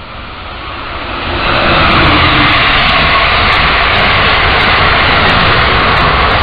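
Amtrak Silver Meteor passenger train, hauled by an ACS-64 electric locomotive, passing at speed: a rush that swells for about a second and a half as it arrives, then a loud, steady noise of wheels on rails and air as the cars go by.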